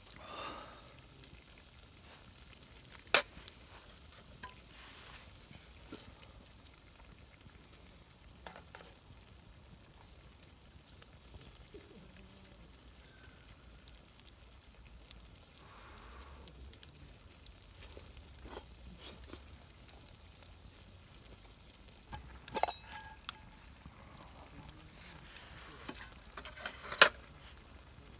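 Food frying in a pan over a small wood fire pit, a faint steady sizzle with scattered clicks and three sharp knocks, the loudest near the end.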